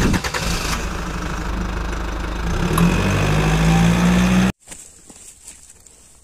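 A motor engine running, its pitch and level rising about three seconds in as it revs, then cut off abruptly; a much quieter stretch with faint ticks follows.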